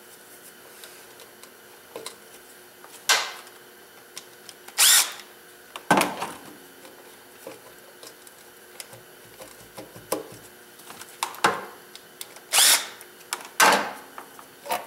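Valve cover of a GM 3800 V6 being rocked loose and lifted off the cylinder head: a series of about eight sharp, unevenly spaced clunks and knocks as it is worked free.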